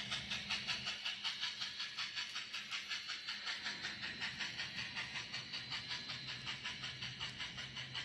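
Kato N scale GS-4 steam locomotive's DCC sound decoder playing steady exhaust chuffs through its small speaker, about four to five a second, with a hiss, as the train runs.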